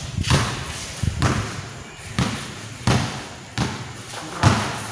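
A basketball being dribbled on a court: about six bounces, a little under a second apart.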